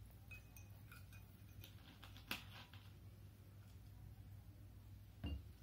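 Faint ticks and clicks of soda being poured into a mojito glass and fizzing, then a short low thump near the end as the plastic soda bottle is set down on the counter.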